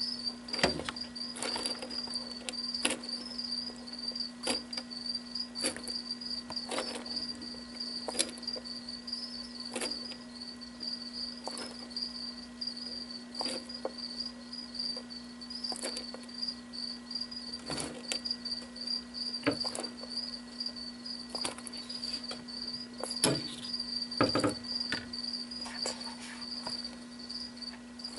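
A cricket chirps in a steady high trill over a low steady hum. Short clicks and knocks come every second or two, a few louder ones in the second half, as a jeweled lacerta bites and tugs at rabbit heart on a pebble floor.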